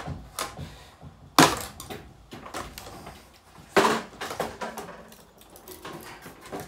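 A Lanson ceiling fan being smashed: two loud, sharp hits with a cracking, splintering sound, about a second and a half in and again near four seconds, with smaller knocks and rattles between.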